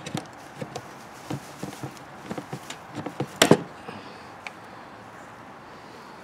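Footsteps and a run of light knocks on wood, with a louder knock about three and a half seconds in and a click a second later, as a wooden rabbit hutch door is handled and opened.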